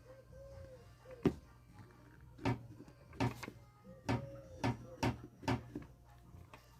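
A homemade spot welder built from a microwave oven transformer, worked in a series of about seven sharp, irregular snaps and clicks, with the first and loudest a little over a second in, over a steady low hum.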